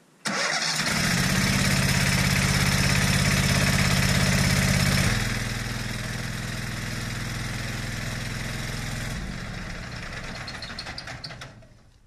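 Engine of a Vermeer BC700 wood chipper starting at once and running with a steady drone. It drops to a lower level about five seconds in and again near nine seconds, then winds down and stops. The chipper is jammed with bamboo chips and smoking at the discharge.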